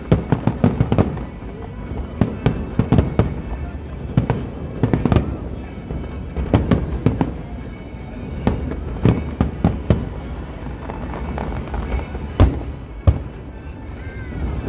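Fireworks display: aerial shells bursting in rapid volleys of bangs and crackles, with two heavier single booms near the end.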